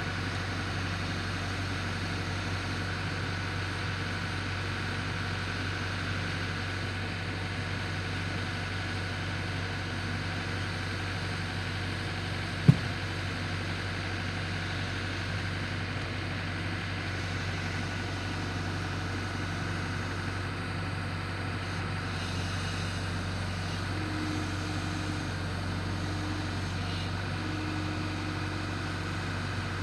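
An engine running steadily at an even speed, with no revving. A single sharp knock sounds a little before halfway through.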